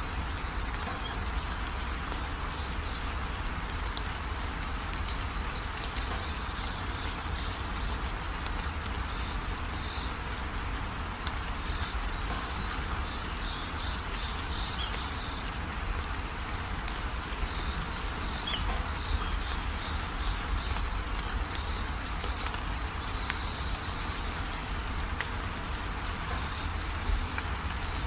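Small birds chirping in short runs over a steady hiss.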